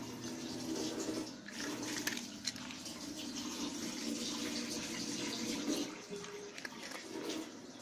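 Small dog licking and eating chicken from its bowl: a continuous run of wet licking and smacking sounds as it cleans the bowl out.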